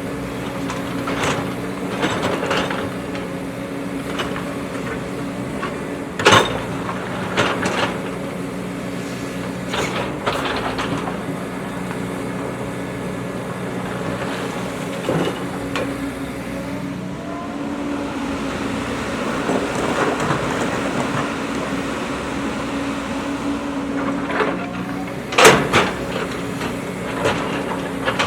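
JCB backhoe loader's diesel engine running steadily under working load, with sharp knocks and clanks from the digging work, the loudest about six seconds in and again near the end.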